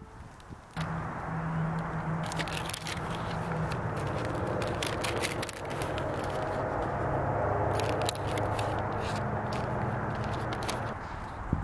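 Vinyl stickers and their clear plastic packet being handled: steady crinkling and scraping, with bursts of sharper crackles about two seconds in and again near eight seconds.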